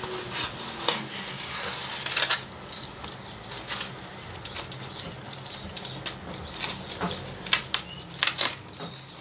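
A corrugated cardboard parcel being torn and cut open by hand with a utility knife: crinkling and tearing of the cardboard and tape, with scattered sharp clicks and scrapes.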